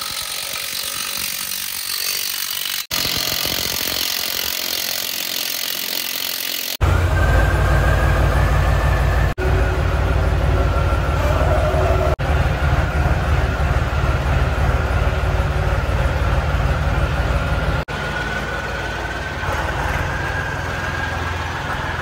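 A steady hiss for about seven seconds, then a tractor's diesel engine running loud and low with a faint whine, heard across several spliced clips.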